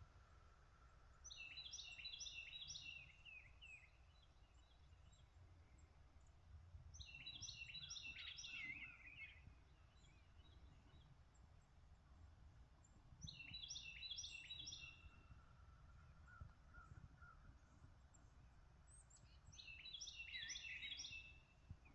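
A songbird singing the same short song four times, about every six seconds: each song a quick run of high, repeated, down-slurred notes. A fainter bird calls between the songs over a low, steady outdoor rumble.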